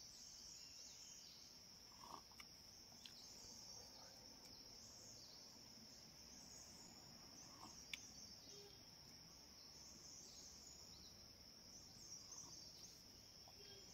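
Faint, steady high-pitched insect chorus, a continuous wavering trill, with a few soft knocks here and there.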